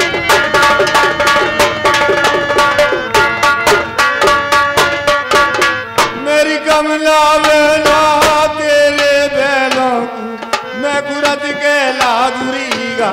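Folk stage music: fast hand-drum beating on a barrel drum under a pitched melody line. About six seconds in, the drumming thins out and the melody carries on in long, wavering held notes.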